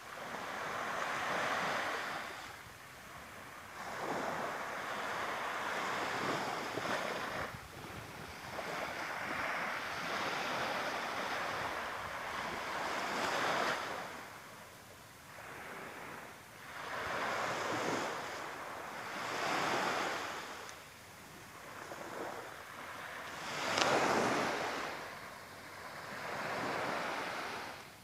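Small sea waves breaking and washing up a sandy beach, the surf noise swelling and fading every few seconds, the loudest swell a few seconds before the end.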